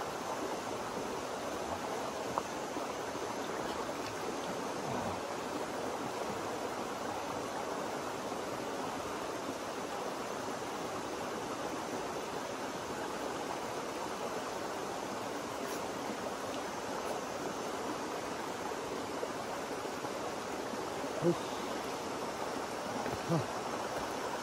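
Small mountain stream running over rocks in a little cascade: a steady, even rush of water.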